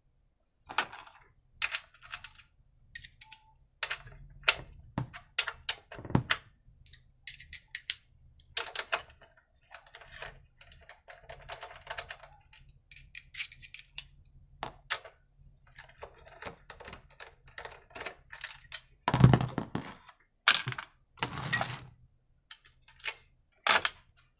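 Metal hand tools clicking and clinking as a socket wrench undoes the carburettor nuts on a small petrol generator, in irregular taps with a quick run of clicks about halfway through. Several louder clunks and a scrape follow in the last third.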